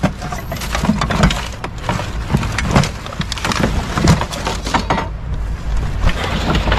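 Hands rummaging through rubbish in a bin, shifting cardboard, plastic bags and a wooden board, giving a run of irregular knocks, clatters and rustles.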